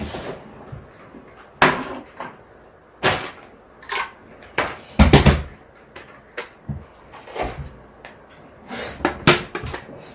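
Several separate knocks and clicks of hard objects being handled and set down on a table, the loudest a heavy thump about five seconds in.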